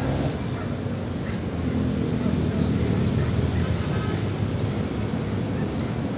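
Steady low rumble of distant city traffic, with faint voices.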